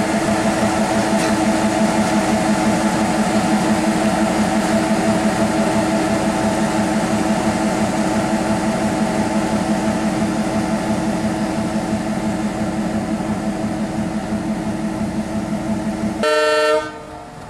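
Diesel locomotive's multi-tone horn held in one long steady blast close by, with the engine running beneath it. Near the end it breaks into a brief brighter toot, then falls away to quieter train noise.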